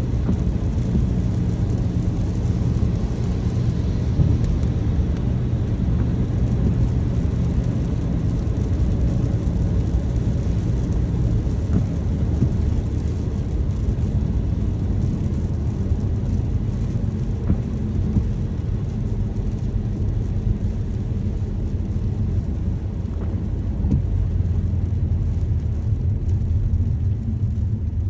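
Steady road and engine rumble of a car being driven, heard from inside the cabin: a low, even drone of tyres and engine that holds constant throughout.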